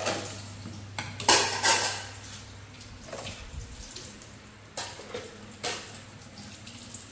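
Dishes and kitchenware clattering in a sink: a quick run of sharp knocks about a second in, then a couple more single clacks later.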